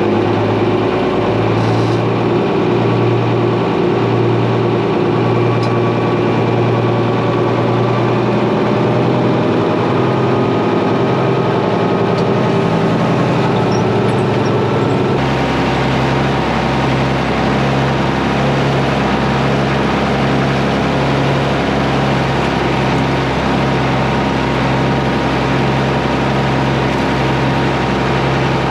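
Heavy diesel farm machinery engine running steadily. Its sound changes abruptly about fifteen seconds in, to a deeper, fuller hum.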